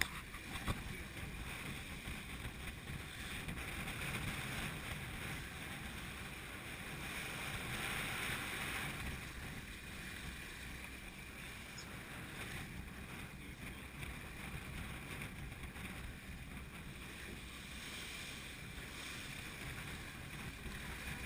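Wind and water rushing around a sailing yacht in a force 7 near-gale: a steady rushing noise that swells louder about eight seconds in.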